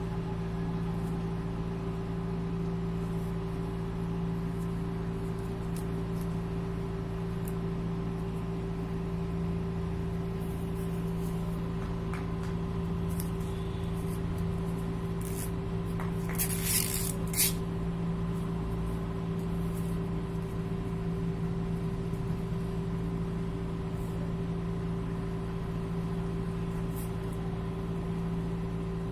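A steady machine hum holding a few fixed tones, with a short hiss a little past halfway and a few faint clicks.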